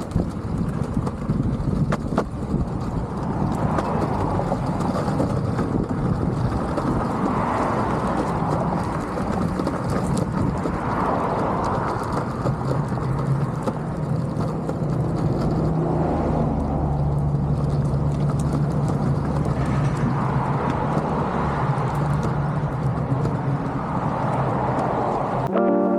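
Longboard wheels rolling steadily over pavement, a continuous rumble with a low hum coming in about halfway through.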